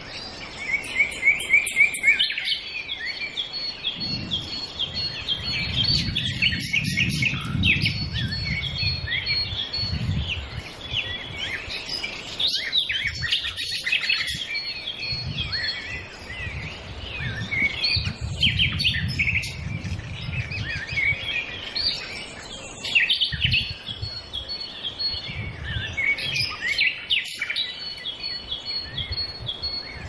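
Many birds chirping and calling at once, a dense run of short chirps and trills. A low rumble comes and goes underneath.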